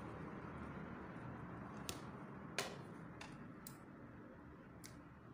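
A few faint, sharp clicks scattered through the second half: scissors snipping loose threads off a sewn cloth skirt, with the fabric being handled, over low room noise.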